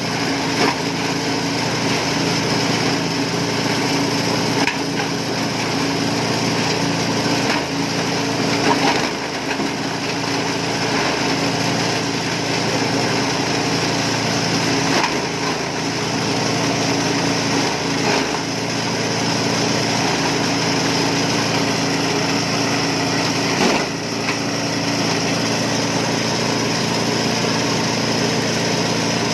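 Compost and organic-waste shredder machine running steadily with a constant hum. A handful of sharp knocks stand out, spaced several seconds apart.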